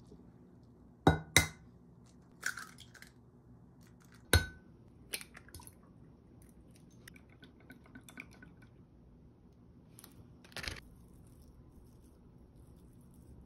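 Kitchen handling sounds: sharp clinks and knocks of glass bowls and a glass measuring jug on a worktop, two loud ones about a second in and another just after four seconds with a short ring, and a few quieter taps in between.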